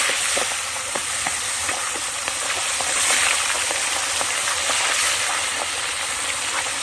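Fish frying in hot oil: a steady loud sizzle with many small pops and crackles.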